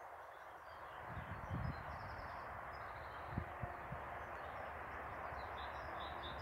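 Steady hiss of road traffic passing on a nearby ring road, with small birds chirping over it and a few short low thumps.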